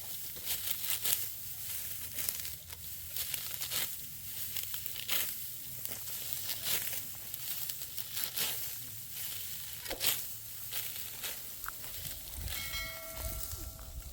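Repeated crisp rustling and crackling, like dry stalks or leaves being crushed, coming in irregular strokes. Near the end there is a short pitched call.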